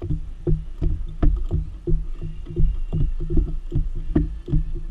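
Irregular clicks and knocks of hand tools and handling while bolts are worked in under a car's dashboard, over a steady low rumble.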